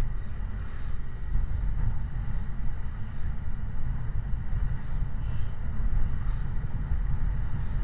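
Wind buffeting the microphone over the steady rumble of a vehicle moving through traffic.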